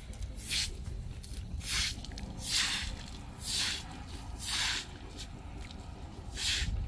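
Straw broom swishing over wet concrete in short strokes, about six sweeps roughly a second apart with a short pause near the end, as water is swept across the slab.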